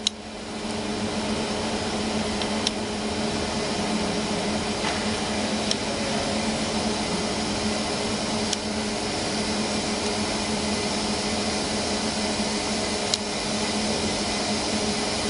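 Steady machinery hum and hiss, like cooling fans or running equipment, with a few faint, sharp clicks spread through it.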